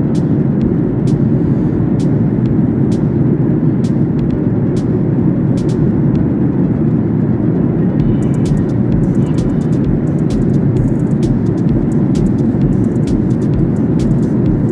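Steady, even cabin noise of a jet airliner in cruise, heard from inside the passenger cabin at a window seat: a deep, constant rush of engines and airflow.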